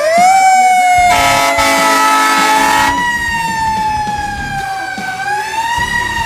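Fire truck siren wailing: its pitch rises at the start, drifts slowly down, and rises again near the end. The truck's air horn blasts for about two seconds, starting about a second in.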